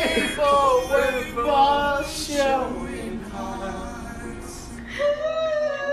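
A young man singing, his voice wavering in pitch, then holding one long note from about five seconds in.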